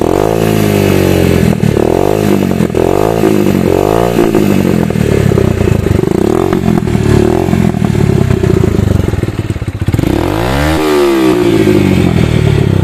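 Yamaha YBR 125G's single-cylinder four-stroke engine being revved through an aftermarket silencer on a cut-and-welded bend pipe, with a loud, very annoying exhaust note. The revs rise and fall in about six short blips, then one bigger rev near the end.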